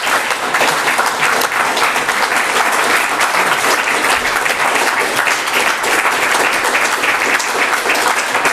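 Audience applauding steadily, a dense patter of many people clapping at the close of a reading.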